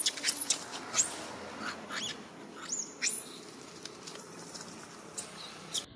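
Macaque monkeys squealing: a rapid run of short, very high-pitched squeaks and screams, some sweeping up and down in pitch.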